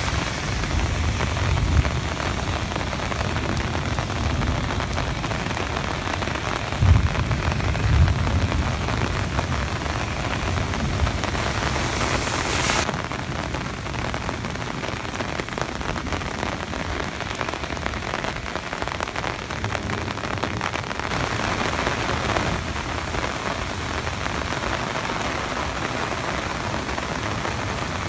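Heavy thunderstorm rain falling steadily on pavement and grass, an even hiss, with a couple of low rumbles about seven and eight seconds in. The hiss turns duller about halfway through.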